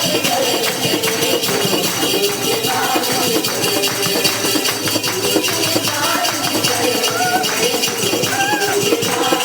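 Hindi worship song music: a melody over a steady, rattling hand-percussion rhythm.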